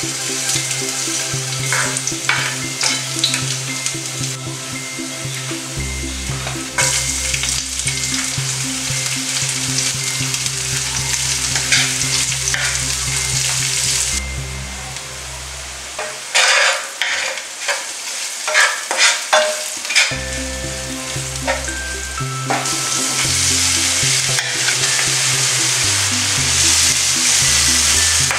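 Garlic and sliced red onion sizzling in hot coconut oil in a nonstick pan, stirred with a wooden spatula that scrapes and knocks against the pan. There is a cluster of louder knocks about two-thirds through, and the sizzle grows denser and louder near the end.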